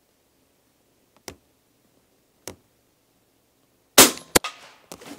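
A fully suppressed De Lisle carbine firing one subsonic .45 ACP round about four seconds in: a short, muffled shot, followed about half a second later by a sharp crack from the bullet striking the target board downrange. Two faint clicks come before the shot.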